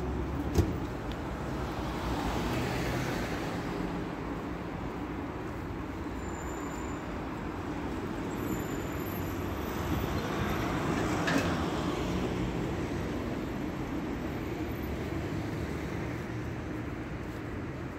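Street traffic passing on a city street: a steady rumble of vehicles that swells as one goes by a couple of seconds in and again, louder, near the middle. There is a sharp click just after the start.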